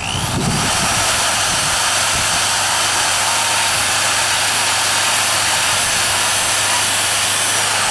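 Handheld high-speed rotary tool with a small cylindrical cutting bit, spinning up at the start and then running with a steady high whine and grinding hiss as the bit shaves soft agave stalk wood.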